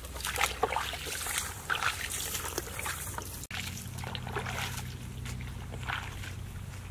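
Footsteps through wet grass and shallow standing water: irregular splashes and rustles, over a steady low hum. The sound briefly cuts out about halfway.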